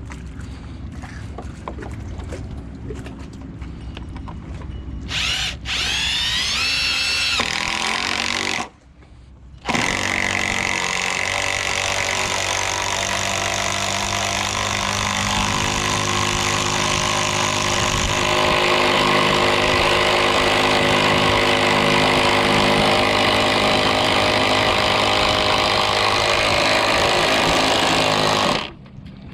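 A power tool working wood: it spins up with a rising whine, stops for about a second, then runs steadily for nearly twenty seconds before cutting off near the end, its sound shifting about halfway through the run.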